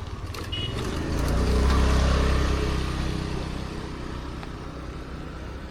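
A motor vehicle passing close by: its engine hum swells to a peak about two seconds in, then fades away.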